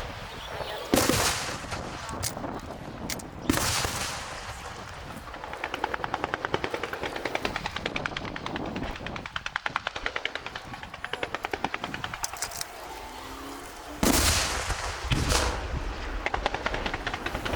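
Aerial fireworks going off: heavy shell bursts about a second in, again a few seconds later, and twice more near the end. Between them comes a long rapid string of crackling pops, like a machine gun.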